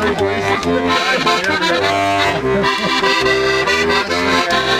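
Squeeze box (accordion) played live: a melody over sustained chords, with the bass notes coming in short, evenly repeated blocks in a steady rhythm.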